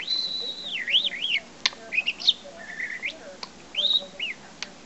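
Pet budgerigar whistling a run of learned whistles: a long held high note, then quick falling and rising slides and short chirps, with another rising whistle about four seconds in. A few sharp clicks are scattered through it.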